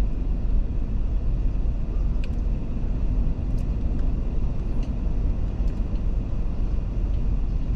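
Steady low rumble of engine and road noise from a car driving in slow traffic, heard from inside the cabin.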